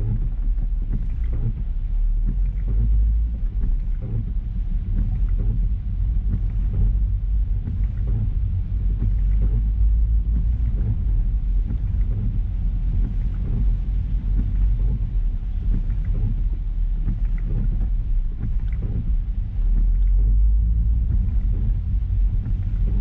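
A car driving along: a steady low rumble of road and engine noise, with a faint hiss higher up.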